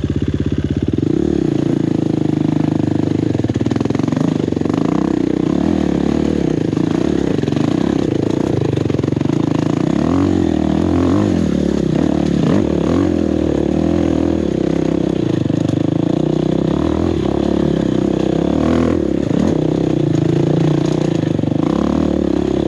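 Four-stroke enduro dirt bike engine running, revved up and down repeatedly in short blips, with a few clunks along the way.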